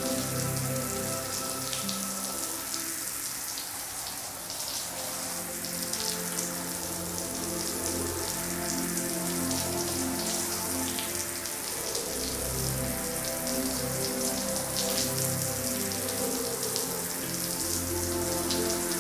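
Soapy water sprinkling from a watering can's rose onto a soaked rug, a steady patter and splash like rain, over soft background music with sustained notes.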